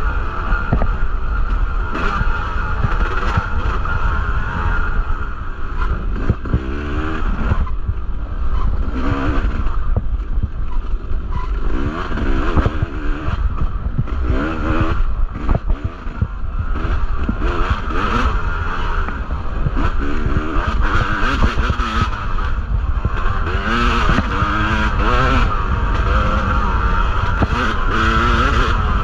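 Yamaha two-stroke dirt bike engine being ridden hard, its pitch rising and falling again and again as the throttle is opened and closed. Frequent knocks and clatter come from the bike over rough trail.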